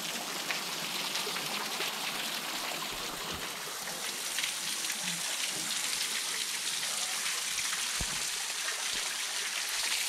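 Low-flow waterfall falling from a rock overhang, its water spattering as scattered drops onto the rocks below: a steady, rain-like hiss.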